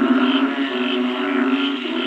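Chorus of many frogs calling together in a continuous droning din, with higher-pitched calls pulsing over it about twice a second.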